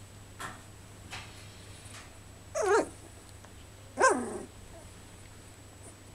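Goldendoodle puppies giving two short, high-pitched barks, about two and a half and four seconds in, each wavering and dropping in pitch at its end.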